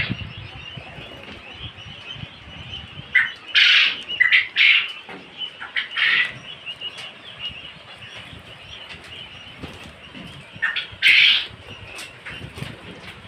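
A flock of young quail chirping steadily, with bursts of louder calls about three to five seconds in, again around six seconds and around eleven seconds.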